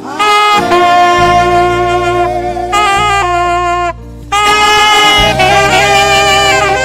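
Instrumental music: a lead instrument plays long held notes over a steady bass line, with a brief break about four seconds in.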